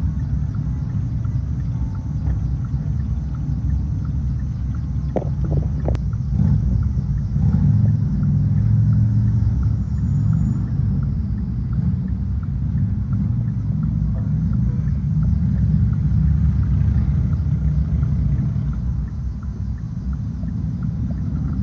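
Low, steady vehicle engine rumble while idling in stopped traffic, with a few faint clicks about five to six seconds in.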